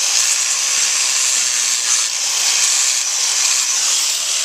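Electric angle grinder with a sandpaper flap disc grinding down a horse's hoof wall at the heel, a loud, steady hiss.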